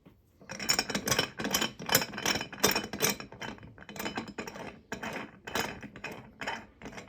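A run of sharp clicks and clinks of small hard parts, about two to three a second, from working the small watch-crystal press.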